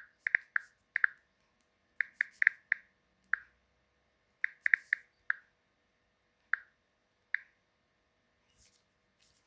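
Typing on a keyboard: about fifteen short, sharp key clicks in uneven bursts, sparser toward the end.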